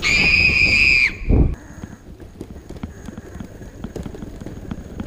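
A high, steady whistle-like tone for about a second that slides down as it stops, then a thump. After that comes a fast, irregular clatter of the Yuneec E-GO 2 electric longboard's wheels rolling over paving stones.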